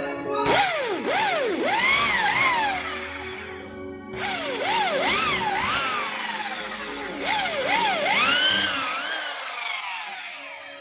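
Corded electric drill boring into a white plastic piece, its motor whine swooping up and down as the speed and load change, in three runs of a few seconds each.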